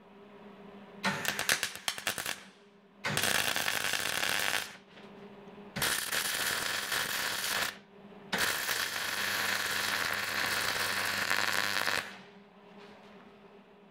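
Electric arc welding on steel, done in four runs: a crackling sizzle each time the arc is struck. The first run is short and spattery, the next two last about two seconds each, and the last about three and a half seconds. A low steady hum sounds between the runs.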